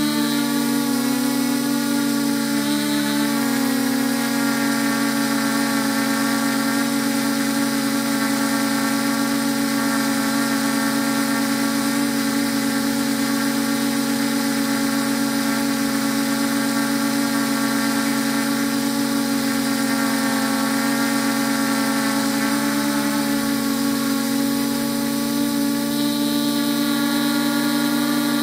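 Multirotor drone's propellers and motors buzzing steadily as it flies, heard from its own onboard camera, with small shifts in pitch as it manoeuvres.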